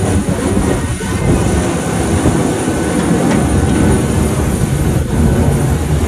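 Loud steady rush of wind buffeting the microphone, mixed with the noise of a parked jet airliner, with a thin steady high whine above it.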